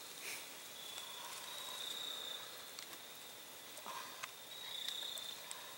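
An insect trilling steadily at a high pitch in stretches of about a second with short breaks, over a faint outdoor hiss, with a few soft rustles in between.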